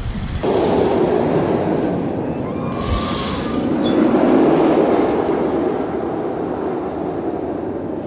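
Steel roller coaster train running past with a deep, rushing roar of wheels on track that swells about four seconds in and then fades. A short sharp hiss, the burst of a flame effect firing beside the track, comes about three seconds in.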